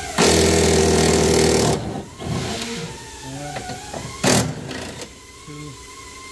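Cordless power tool running on a 12 mm bolt for about a second and a half, then a second short burst a little after four seconds in.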